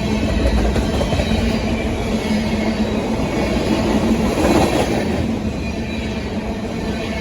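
BNSF grain train's covered hopper cars rolling past: a steady rumble and rattle of wheels on rail, with a brief louder swell about four and a half seconds in.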